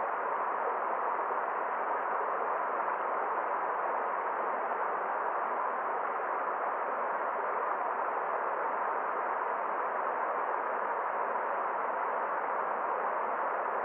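Forest stream water flowing, a steady even rush with no separate splashes or other sounds standing out.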